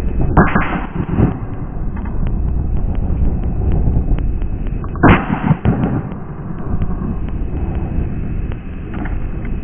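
Two loud shotgun blasts about five seconds apart, fired at flying ducks, over steady wind buffeting the microphone.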